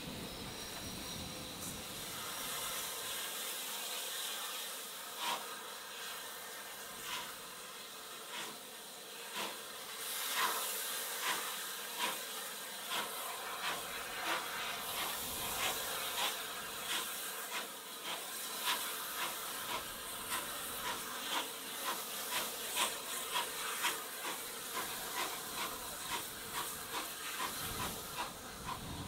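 Steam locomotive pulling away, heard from a carriage further back: sharp exhaust beats come faster and closer together as it gathers speed, over a steady hiss of steam.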